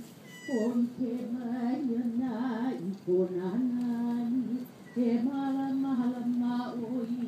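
A single voice chanting a Hawaiian oli in long phrases, held on one or two low notes with a wavering pitch and broken by short breaths. About half a second in, the voice slides down from a high pitch into the chant note.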